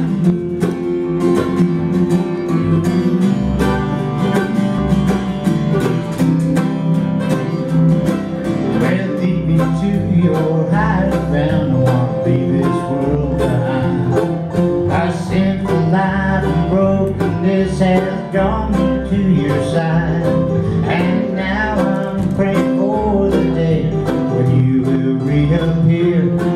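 Live country song: acoustic guitar strumming with a pulsing low bass line, and a man singing, most clearly from about nine seconds in.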